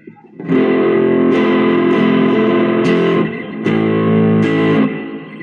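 Electric guitar played through a Joyo DC-15 practice amp on its crunch preset. A strummed chord rings out about half a second in, then a second chord is struck near the middle and rings until near the end.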